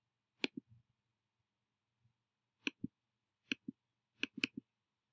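Computer mouse button clicks: short sharp press-and-release pairs, four times, the last two close together like a double-click.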